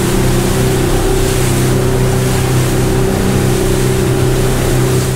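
Fishing boat's engine running steadily at cruising speed under way, with the rush of the wake and wind over it.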